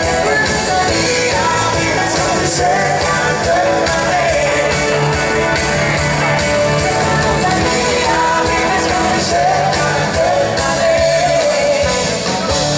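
Dansband playing live in a rock and roll style: electric guitars, keyboard and drums, with vocals over them, loud and steady.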